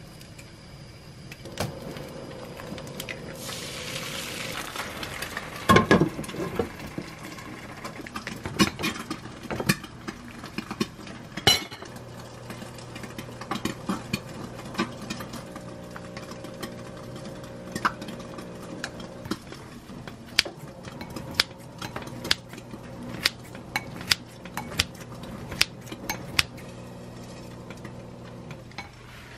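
Home cooking sounds: ceramic bowls, a pan and utensils clinking and knocking many times, with a short hiss a few seconds in. Near the end, wooden chopsticks tap against a ceramic bowl while bibimbap is mixed.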